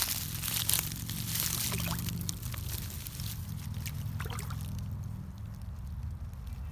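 A steady low rumble, with brush crackling and rustling during the first two seconds.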